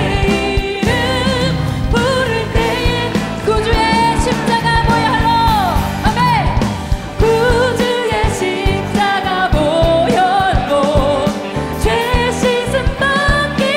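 Live worship band with a group of vocalists singing a hymn in Korean, over drums, bass, electric guitar, piano and keyboard.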